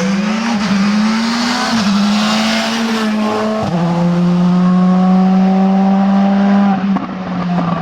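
Rally car engine at full throttle, pulling up through the gears with a drop in pitch at each upshift, about two and four seconds in, then easing off near the end.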